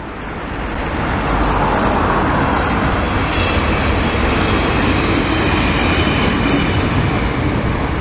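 Double-deck electric passenger train passing close by, a steady rumble and rush of wheels on rail that builds over the first second, with a faint high whine in the middle.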